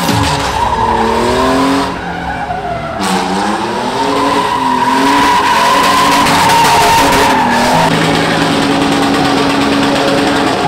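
Toyota Tacoma pickup drifting: the engine revs rise and fall over and over while the rear tires squeal steadily as they spin and smoke on the pavement.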